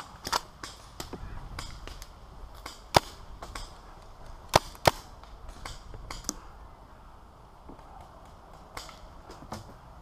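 Paintball markers firing: scattered single sharp pops several seconds apart, the loudest about three seconds in and a quick pair of pops a second and a half later.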